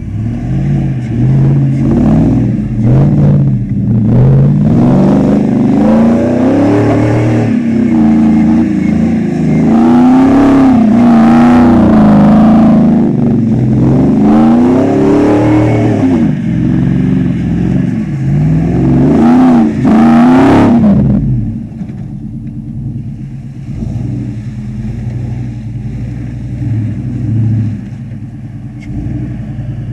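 Pickup truck engine revving hard again and again while the truck spins donuts in mud, its pitch rising and falling with each push of the throttle. About two-thirds of the way through the revving stops and the engine drops to a lower, quieter running.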